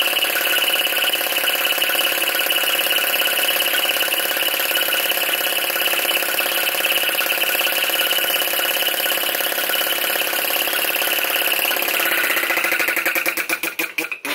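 PM Research Solar Engine No. 3 flame-licker (vacuum) engine running fast, its burner flame drawn in and out in a rapid, steady pulsing beat. Over the last couple of seconds the beat slows and then stops.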